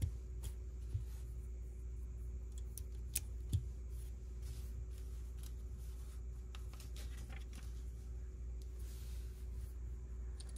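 Plastic Lego pieces being handled and fitted together: scattered light clicks and soft rustling, with a couple of sharper clicks about three seconds in, over a low steady hum.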